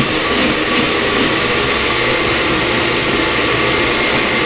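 Countertop blender motor running steadily, puréeing roasted tomatoes, onion and chiles into an adobo sauce.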